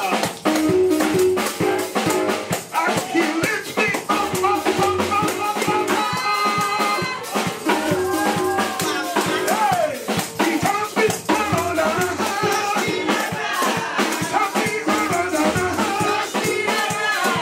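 Upbeat praise music: voices singing over a steady beat of drums and shakers.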